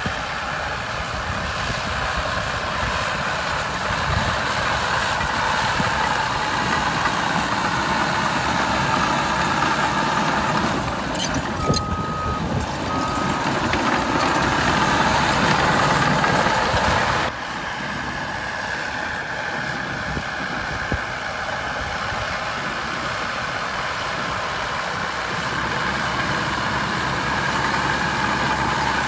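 Caterpillar D6R2 crawler bulldozer working: a steady diesel engine sound with track and blade noise. Two short alarm beeps come about twelve seconds in, and the sound drops suddenly to a quieter level a little past halfway.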